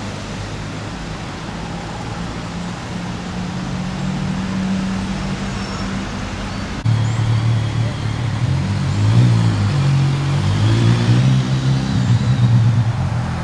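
A car running with a steady low hum. About seven seconds in it gets suddenly louder, and the low tones start stepping up and down.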